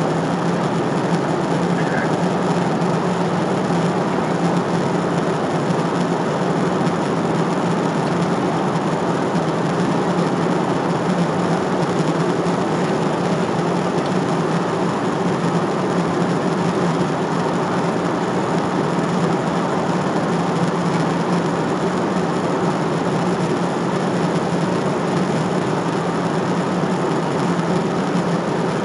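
Steady cabin noise of a jet airliner in cruise, heard from a window seat: an unbroken rush of engine and airflow noise with a low hum underneath.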